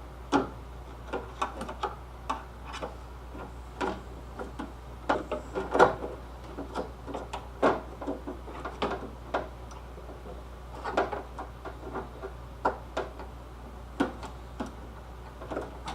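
Screwdriver clicking, tapping and scraping against metal inside a 1965 Mustang's door as it pries at the retaining clip on the door-handle rod. The clicks and knocks come irregularly, the loudest about halfway through.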